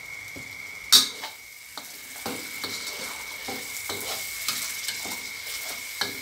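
Metal spatula clanking and scraping against a steel wok while a chili paste with grilled fish is stir-fried and sizzles. A sharp clank about a second in is the loudest sound, followed by repeated scraping strokes about two a second. A steady high tone sits underneath.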